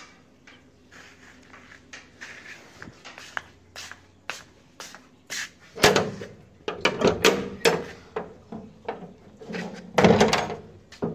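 A door being unlocked and opened: a run of clicks and knocks from its latch and bolt, with two louder clusters of metal clatter about six seconds in and near the end.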